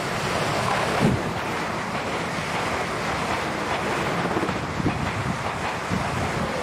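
Passenger train passing through a station at speed: a steady loud rush of wheels on rails and air, with a few sharp clacks from the wheels.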